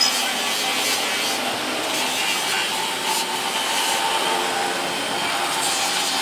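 Steady abrasive rubbing of a plastic headlight lens being polished.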